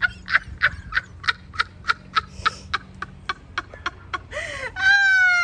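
High-pitched cackling laughter: a long, even run of short 'ha's, about three a second, ending in a drawn-out squeal that falls slightly in pitch.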